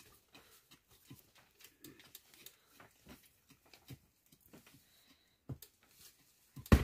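Curved knife chopping and scraping at a wooden peg: a string of light, irregular taps, with a sharper knock about five and a half seconds in and a louder one near the end.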